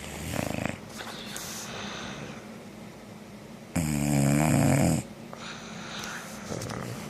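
Bulldog snoring in its sleep: a short snore at the start, one loud snore about a second long around four seconds in, and a softer one near the end.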